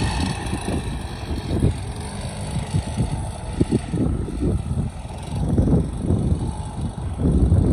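Wind buffeting the microphone in irregular gusts, over the low rumble of a small motorcycle running during riding practice. The buffeting grows louder near the end.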